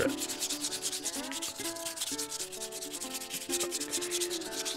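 120-grit sandpaper, folded in three, rubbed by hand over a soapstone oloid in quick, even back-and-forth strokes, working out the scratches left by 80 grit.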